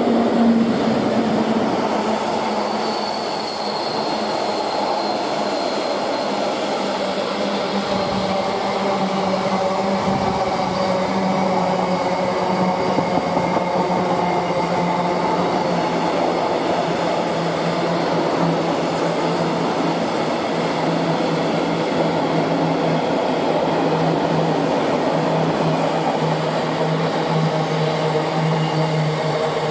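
Freight train passing, its wheels running on the rails at a steady level, with a steady drone that drops a little in pitch about halfway through. A faint high whine comes a few seconds in.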